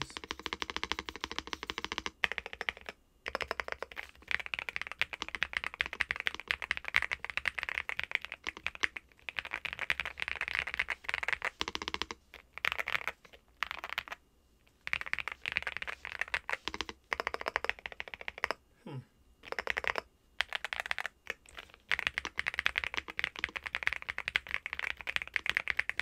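Fast typing on a NuPhy Gem80 mechanical keyboard with stock Gateron x NuPhy Raspberry switches, mounted on silicone strips with an FR4 plate, under MSA-profile double-shot PBT keycaps. The keystrokes come in quick runs, broken by a few short pauses.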